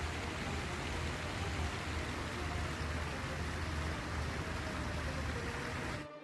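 Waterfall, a steady rushing noise with a low rumble under it, cutting out abruptly near the end.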